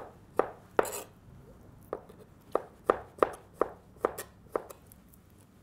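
Kitchen knife slicing tomato into strips on a cutting board: about a dozen sharp taps of the blade striking the board in an uneven rhythm, roughly two to three a second.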